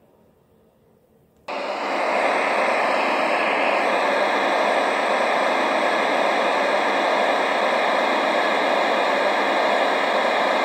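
Near silence, then about a second and a half in a loud, steady rushing noise cuts in suddenly and holds, jet-like in character.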